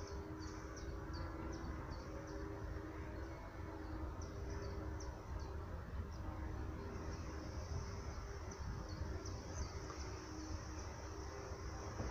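Background ambience: a steady low rumble with a faint hum, under faint short high chirps that come in runs of about three a second.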